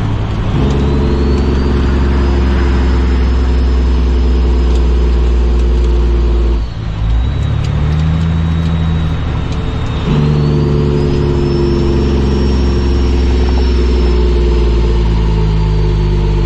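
Cummins ISX diesel in a Kenworth W900L pulling steadily under load, heard inside the cab, with a high whine above it that rises and falls. About seven seconds in the engine note drops out briefly for a gear shift. About three seconds later it picks up and pulls again.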